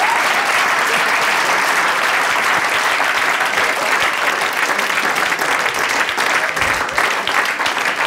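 Studio audience applauding steadily, a dense even clatter of many hands clapping.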